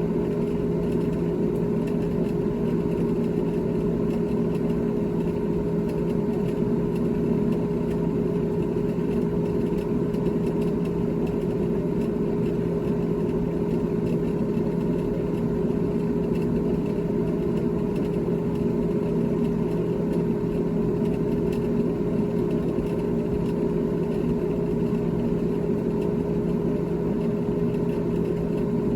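GE GTH18XCTZRBB refrigerator running with a steady, even hum made of a few fixed tones, with no change in level or pitch.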